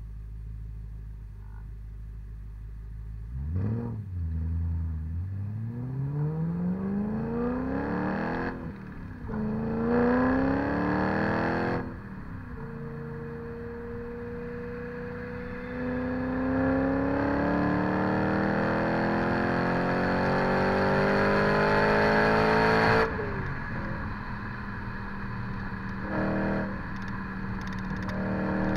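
BMW E90 M3's V8 through a Megan Racing Supremo cat-back exhaust with the secondary catalytic converters removed. It idles, then pulls away and accelerates through the gears: the note climbs, drops at two gear changes, climbs again in a long loud pull, then falls sharply as the throttle is lifted and runs on lower.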